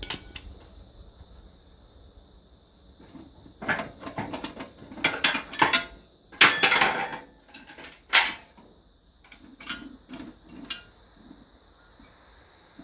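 Irregular metal clanks and rattles, loudest in the middle of the stretch, then a few softer knocks. This is typical of steel parts being handled and set down.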